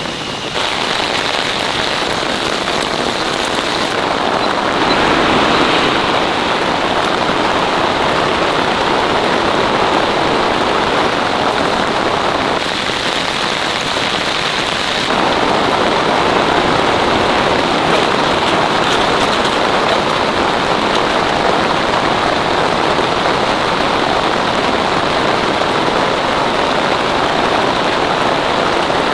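Heavy rain falling steadily on a tent, a dense, even hiss of drops.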